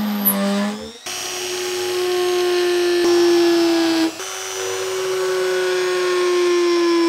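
Handheld rotary tool running at high speed, cutting and drilling into a clear 3D-printed plastic hull: a steady motor whine whose pitch sags slightly. The whine jumps abruptly to a new pitch about a second in and again about four seconds in.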